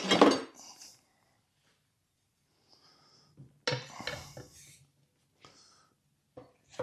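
Steel tire irons clanking against a riding-mower tire's steel rim and each other while prying the tire bead off. There are a few separate ringing metal clanks, one right at the start and another just before four seconds in, with lighter clicks later.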